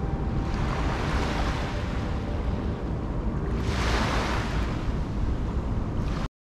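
Small waves washing onto a sandy beach, swelling about half a second in and again near four seconds, with wind rumbling on the microphone. The sound cuts off suddenly near the end.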